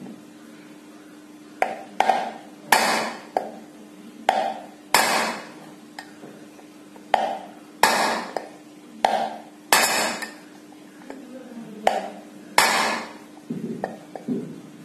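Repeated hammer blows on a steel rod set through a ceiling fan motor's cover, tapping the bearing out: about a dozen sharp metallic strikes, some in quick pairs, spaced one to two seconds apart, each ringing briefly. A steady low hum runs underneath.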